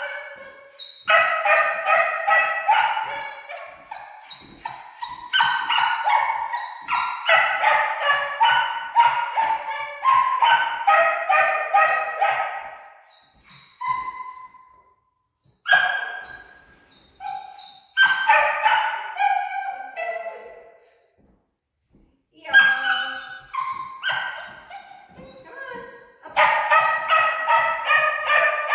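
A dog barking and yelping in quick, high-pitched runs, bout after bout, with short pauses between.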